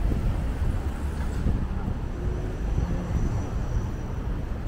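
Outdoor street ambience: a steady low rumble of passing traffic and wind on the microphone, with faint voices of passers-by.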